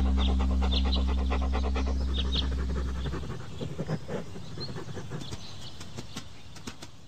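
Soundtrack fading out: a held low drone that stops about three seconds in, short bird-like chirps in the first couple of seconds, and quick ticks that die away.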